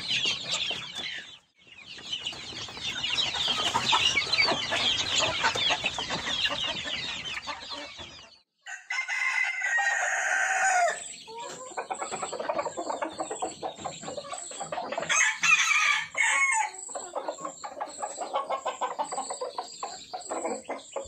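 A flock of chickens clucking together in a dense chatter; about nine seconds in, a rooster crows once close by, and scattered clucking follows.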